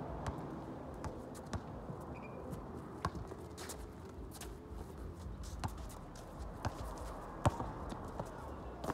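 A basketball bouncing on an outdoor concrete court and sneakers moving on it, heard as scattered, irregular thumps and scuffs over a steady low background; the sharpest thump comes about seven and a half seconds in.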